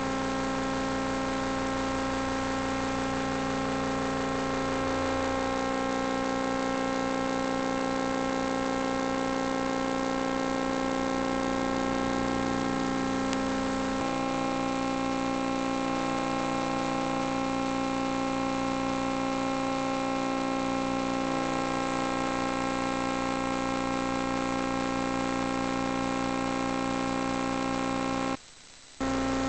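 Steady electrical hum and whine with many fixed tones, picked up by an in-vehicle multi-camera recorder; its pattern changes abruptly about halfway through and it cuts out for a moment near the end.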